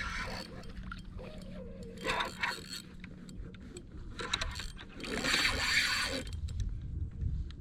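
Fishing reel being wound in with a mechanical, gear-like clicking while a fish is on, with louder rushes of noise about two seconds in and again about five seconds in.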